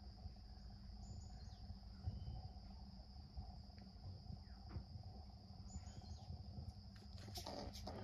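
Faint, steady high-pitched insect drone over a low rumble, with a few short scratchy rustles near the end.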